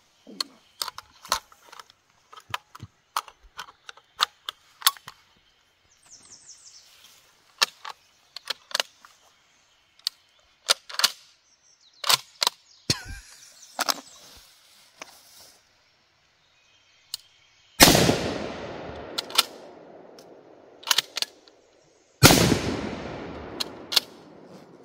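Metallic clicks and clacks of a Mossberg 185 20-gauge bolt-action shotgun being loaded and its bolt worked. Then two shotgun shots about four and a half seconds apart, each with a long fading echo. Between and after the shots there are a few more clicks as the bolt is cycled to eject the spent shells.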